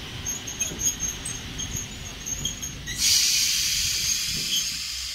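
Ty42 steam locomotive letting off steam: a loud hiss starts suddenly about three seconds in and runs steadily on, over a low rumble with faint scattered high ticks before it.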